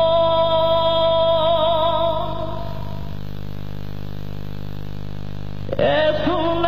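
A woman's voice holds a long sung note with vibrato over a sustained accompanying chord; the note fades away and the chord rings on alone. Near the end a new sung phrase comes in, sliding up in pitch.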